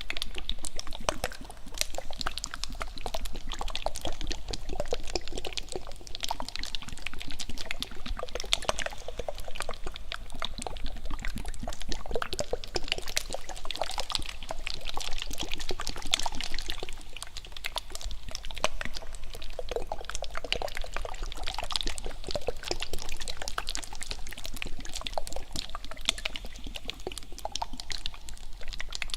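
Wet licking and mouth sounds: a continuous stream of small clicks and smacks.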